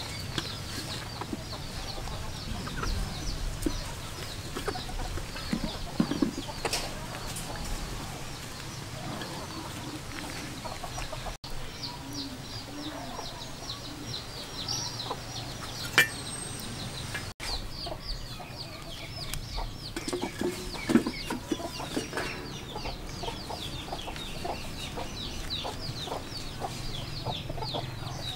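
Chickens clucking and cheeping steadily in the background, a rapid run of short high chirps throughout, with a few light knocks from handling on a steel tray.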